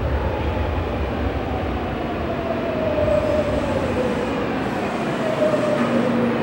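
Tokyu electric commuter train pulling into the station, with a steady running rumble and a motor whine that falls slowly in pitch as the train brakes.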